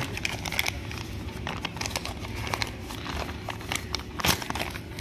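Crinkling and light clicking as new steering-cylinder parts and their plastic packaging are handled, with one sharper click about four seconds in.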